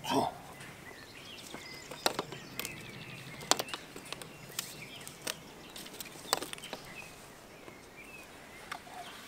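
Sharp clicks and knocks, about a dozen spread irregularly, from a polyethylene water pipe and its plastic fitting being worked and tightened by hand, after a short louder sound at the start. Small birds chirp faintly in the background.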